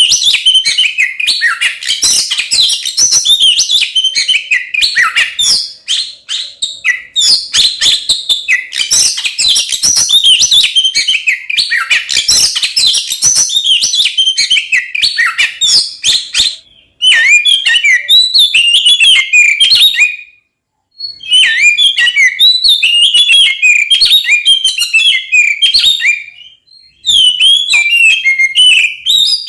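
Oriental magpie-robin (kacer) singing fast and nonstop, a dense jumble of chirps, whistles and sharp clicks in the agitated fighting-mood style that keepers call ngeplong or konslet. The song stops briefly three times in the second half.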